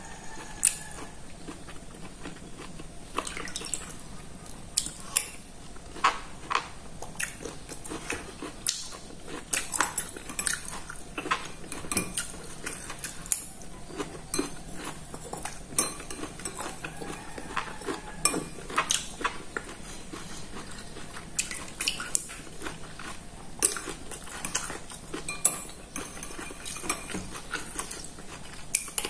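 Metal spoon clinking and scraping against a ceramic soup bowl as clear soup is scooped up and eaten, with sharp clinks coming irregularly every second or so and soft eating sounds between them.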